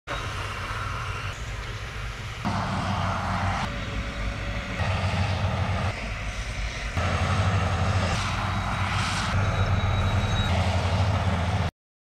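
Heavy diesel engines of a Komatsu crawler bulldozer and a dump truck running under load, a deep steady rumble whose level and pitch jump abruptly every second or so. It cuts off suddenly near the end.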